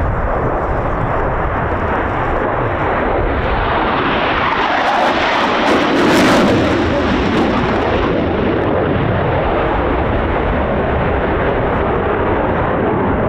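Eurofighter Typhoon's twin EJ200 turbofan engines as the jet makes a display pass: the jet noise swells to its loudest about six seconds in and drops in pitch as the jet goes by, then holds on loud as it flies away.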